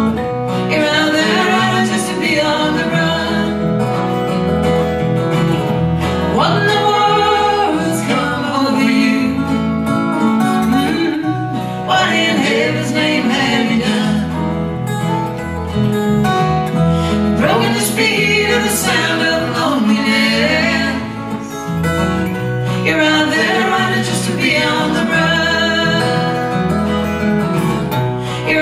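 Country song played on acoustic guitar and strings, with singing over the accompaniment.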